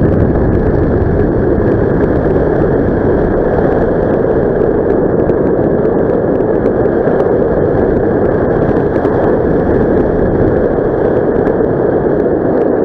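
Airflow rushing over the camera microphone during a paraglider flight: a loud, steady rush of wind noise with no pitch to it, cutting in abruptly at the start.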